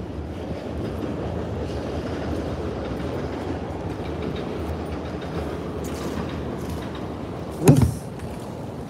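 A steady low rumbling noise, then one loud thump near the end that fits a plastic wheelie-bin lid being flipped open.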